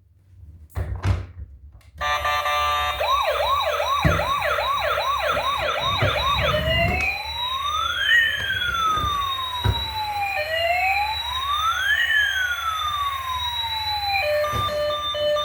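A few clicks, then a toy emergency vehicle's electronic siren switches on about two seconds in. It gives fast repeated yelping chirps, then slow rising and falling wails, and near the end it changes to a short electronic tune.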